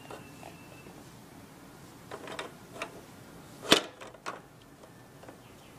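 A few short, scattered clicks and knocks from the plastic toys of an Evenflo Exersaucer activity centre being handled by a baby, the loudest about two-thirds of the way through.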